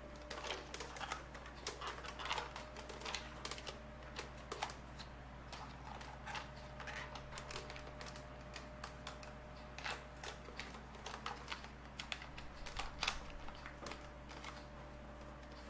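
Light plastic clicks and rattles from a hard plastic toy walker and its small driver figure being handled and pressed into the seat, irregular and scattered throughout, over a faint steady hum.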